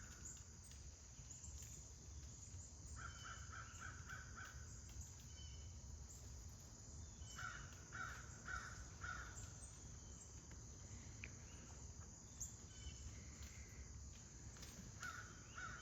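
Crows cawing in quick runs of four or five caws, three runs a few seconds apart, faint over a low steady background rumble.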